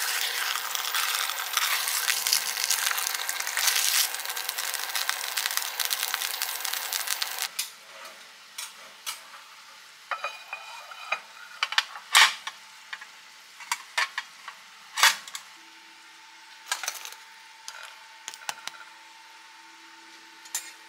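A slice of Spam and a fried egg sizzling in a non-stick frying pan, a dense steady crackle that cuts off about seven and a half seconds in. Then come scattered clinks and knocks of dishes and utensils, among them a ceramic plate set down on a stone counter, with a faint steady hum in the last few seconds.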